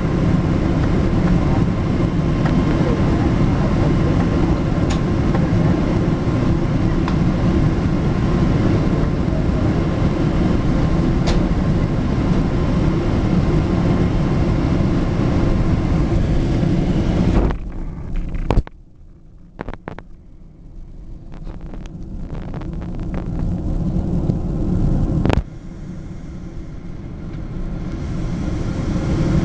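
Steady rumble of cabin noise inside a Boeing 777 taxiing after landing, its engines near idle. About 17 seconds in the noise drops away abruptly, then builds back up gradually, with a single click about 25 seconds in.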